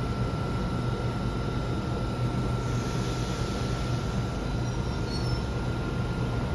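Electric suburban passenger train running at the platform: a steady low rumble with a constant high tone, and a swell of hiss about three seconds in.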